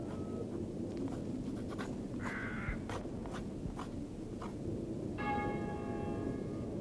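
Quick scratchy strokes of writing on paper, then about five seconds in a bell strikes once and rings on with a steady tone.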